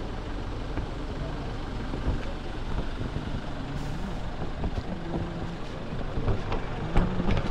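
Motor vehicle engine and road noise in traffic, a steady rumble with a sharp knock about seven seconds in.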